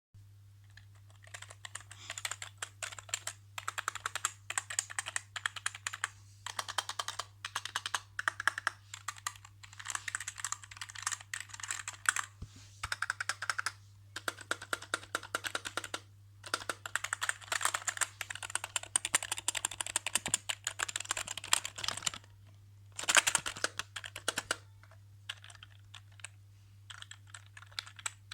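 Typing on a customized budget keyboard: runs of fast keystrokes in bursts of a few seconds, broken by short pauses. A steady low hum runs underneath.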